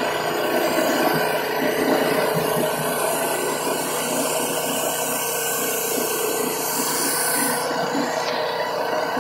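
Gas-engine pressure washer running steadily, with the hiss of water spraying from a 15-inch rotary surface cleaner onto a concrete driveway.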